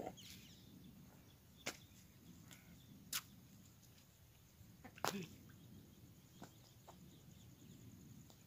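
Near silence, broken by a handful of faint, short, sharp clicks spread across it, the strongest about three and five seconds in.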